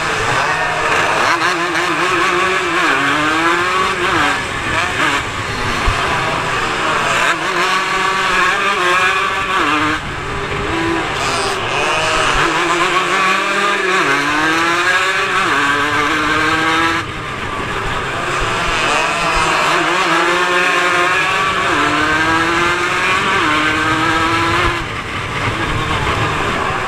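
150cc racing motorcycle engine, heard close from an onboard camera, revving hard through the gears. Its pitch climbs, falls back at each gear change and climbs again, over and over, with a few abrupt breaks in the sound.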